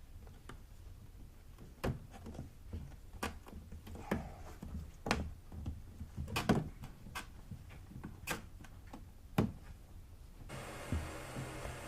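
Scattered knocks, taps and clicks of hands handling and fitting a vortex generator to a car roof, irregular, with two louder knocks in the middle and towards the end.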